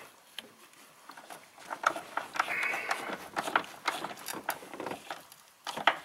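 Quarter-inch drive handle with a 12 mm socket clicking and rattling in short, irregular bursts as it runs a nut down onto a brake master cylinder's mounting stud.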